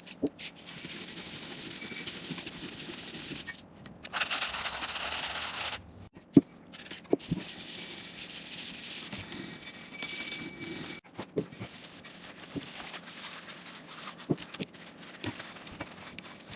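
A 320-grit abrasive pad rubbing back and forth along a steel planer column in hand-sanding, a steady scraping that breaks off and starts again, louder for a stretch about four seconds in. Scattered sharp knocks and clicks come between strokes, the loudest about six seconds in.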